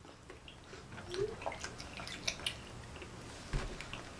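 Faint wet chewing and lip-smacking of children eating fried chicken, as scattered small clicks, with a brief hum about a second in and a soft low thump near the end.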